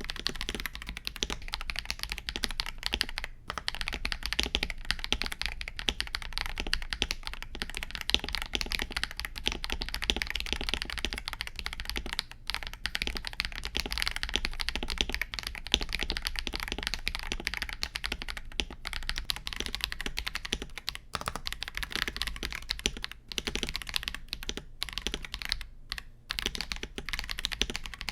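Steady, fast typing on a KBD67 Lite R3 mechanical keyboard fitted with Akko CS Vintage White switches, keystrokes clacking in a dense run with a few brief pauses.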